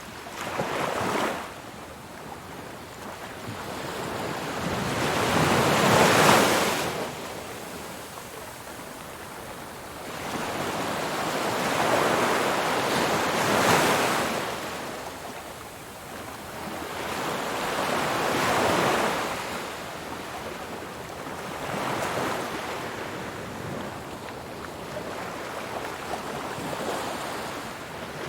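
Ocean waves breaking on a beach: a rushing wash of surf that swells and fades again every few seconds. The loudest wave breaks about six seconds in.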